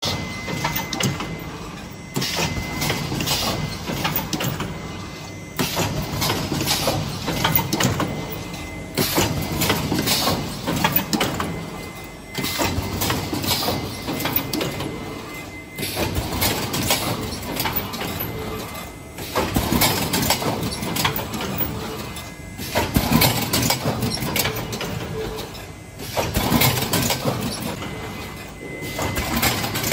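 Automatic snack cup filling and sealing machine running through its cycle, a surge of mechanical clatter starting about every three and a half seconds and dying away before the next.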